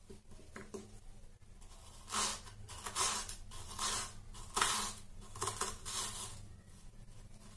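Kitchen knife slicing through a red onion on a wooden cutting board: several separate cuts at irregular intervals, starting about two seconds in.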